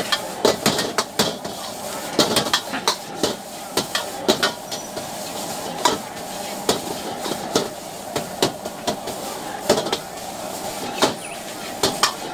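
Metal ladle and spatula clanking and scraping against a large wok as rice noodles and egg are stir-fried: an irregular run of sharp clanks, a few each second, over a steady sizzle of frying.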